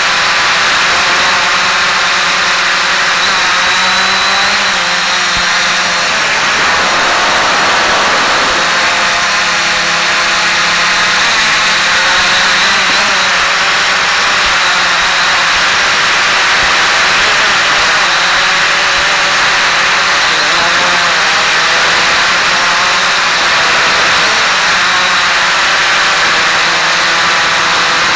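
Quanum Follow Me quadcopter's electric motors and propellers whirring steadily, heard close up from its onboard camera, with wind hiss. The motor pitch drifts up and down as the quadcopter changes speed.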